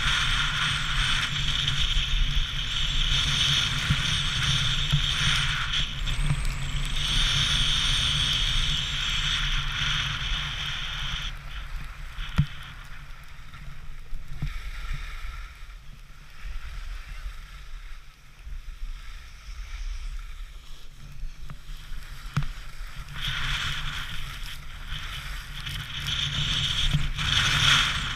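Skis sliding and scraping over packed snow, with wind rumbling on the microphone. The scraping drops away for about ten seconds in the middle, then comes back.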